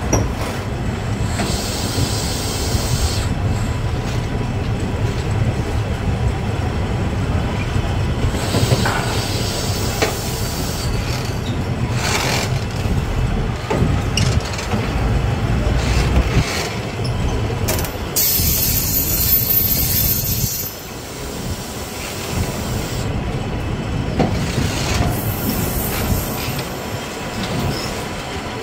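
Passenger train carriages rolling over a timber trestle bridge on a curve, the wheels running close by with a steady rumble and an occasional clack. The wheels squeal, with a high-pitched squeal about eighteen seconds in.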